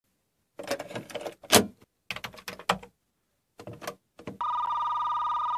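Plastic clacks and rattles of a Commodore Datasette cassette recorder as a cassette is pushed into its door and the door is snapped shut, the sharpest clack a little over one and a half seconds in; its Play key then clunks down. About four and a half seconds in, a steady electronic tone starts and holds at one pitch.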